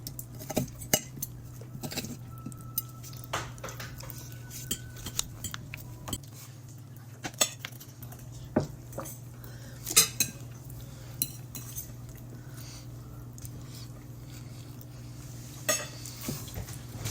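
Cutlery clinking and scraping against a plate and dishes while someone eats, in irregular single clicks and taps, with a steady low hum underneath.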